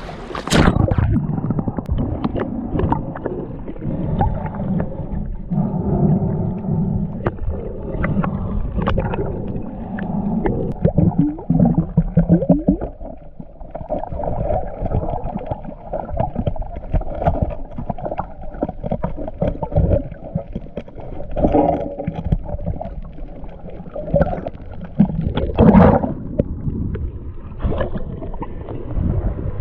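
A splash about half a second in as the camera goes under, then muffled underwater sound while snorkeling: gurgling and bubbling water movement, with another louder splash near the end.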